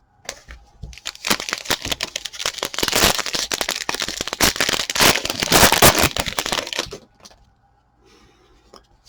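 Wrapper of a football trading card pack being torn open and crinkled: a dense crackling that starts about a second in and stops about seven seconds in.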